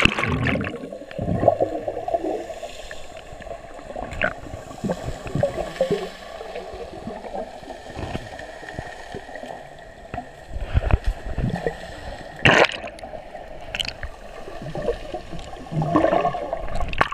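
Muffled gurgling and bubbling of water picked up by a camera held under the sea, with a rush of water as it goes under at the start. A few sharp knocks stand out about three quarters of the way through.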